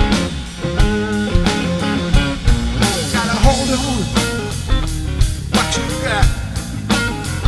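Blues-rock song in an instrumental passage between sung lines: electric guitar over a steady drum beat and bass, with notes bending in pitch about three seconds in and again near six seconds.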